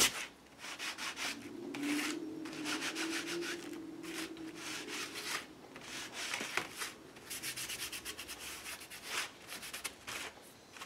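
A small Distress Ink pad rubbed and dabbed across a plastic stencil laid on textured card, in a series of short, irregular scratchy strokes.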